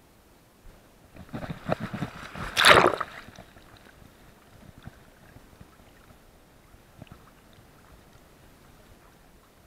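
Scuffing and rubbing on the housing of a chest-mounted action camera as the dog moves, in an irregular run of scrapes with the loudest a little before three seconds in, then only faint scattered ticks.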